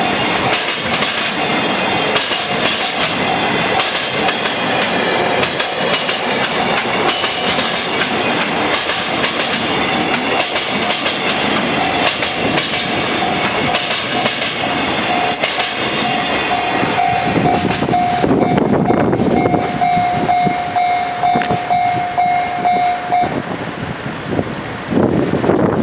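Freight wagons rolling past over a level crossing with a rattling clatter, while the crossing's warning bell rings on and on in a steady pulsing tone. The train noise thins out about 17 seconds in, and the bell cuts off suddenly about 23 seconds in as the crossing clears.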